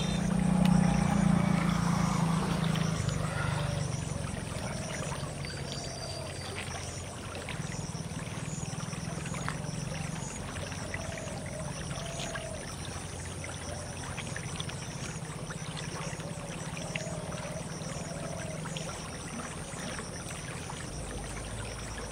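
Shallow field-canal stream flowing steadily over a low rumble that is loudest in the first three seconds. Faint high chirps repeat about once a second.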